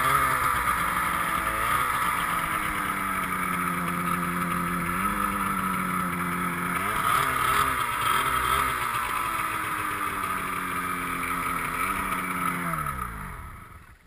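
Snowmobile engine running, its pitch rising and falling several times with the throttle, then winding down and dying away near the end.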